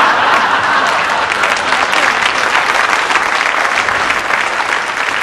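Studio audience applauding: many hands clapping in a dense, steady patter that tails off slightly toward the end.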